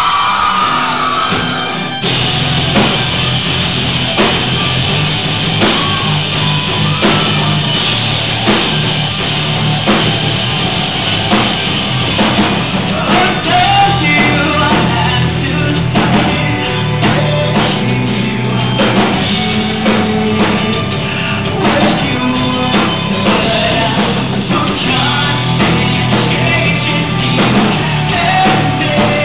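Live rock band playing loud, with drum kit, bass, electric guitar and singing, heard from within the audience. The full band comes in hard about two seconds in, drums hitting steadily.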